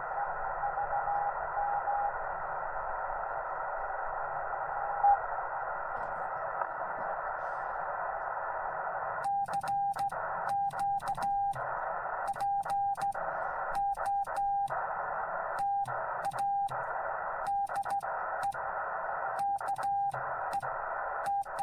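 Yaesu FT-891 HF transceiver on CW: a steady hiss of band noise with a few faint beeps. About nine seconds in, Morse code begins in a single high-pitched beeping tone of dots and dashes, and the receiver hiss drops in and out with the keying.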